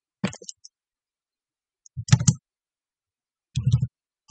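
Computer mouse clicks and keyboard key presses, in three short clusters of sharp clicks separated by silence, as an offset distance is typed in and an object is picked.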